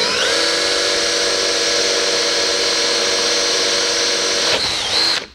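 DeWalt 18V cordless drill running forward with a 1/4-inch bit, boring a pilot hole through a boat hull's gel coat. The motor whine rises as it spins up, holds steady, then winds down and stops near the end.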